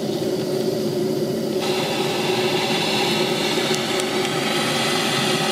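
Small Southworth steam boiler feed pump running steadily. About a second and a half in, a steady hiss starts as the boiler's drain valve is opened and hot, pressurised boiler water blows out through a hose, letting water out of an over-full boiler.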